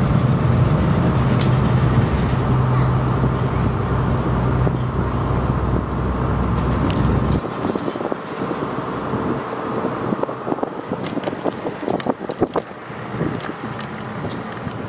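A cargo ship's machinery running with a steady low hum, which cuts off abruptly about seven seconds in. After that come wind and scattered clicks and knocks.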